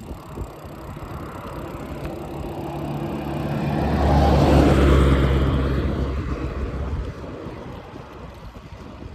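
A motor vehicle passing close by on the road: its engine hum and tyre noise grow louder to a peak about halfway through, then fade away.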